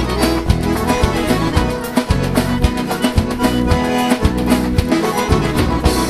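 Instrumental sertanejo dance music with no singing: accordion and fiddle over bass and a steady beat.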